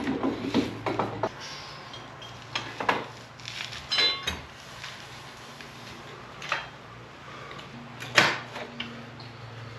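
Steel gusset brackets and hand tools clinking and knocking as they are handled and fitted, a few sharp metallic clinks scattered through, the loudest about eight seconds in, over a steady low hum.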